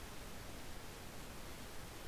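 Faint steady hiss of the recording's background noise, with no distinct sound events.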